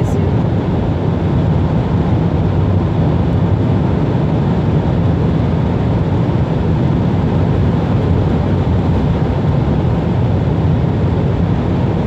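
Steady road and engine noise inside a car's cabin at motorway speed: an even, mostly low rumble with tyre and wind hiss above it.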